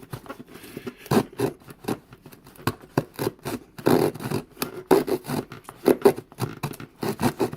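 Small saw blade of a Victorinox Swiss Army knife sawing through a piece of material, rasping in quick, uneven back-and-forth strokes about two to three a second.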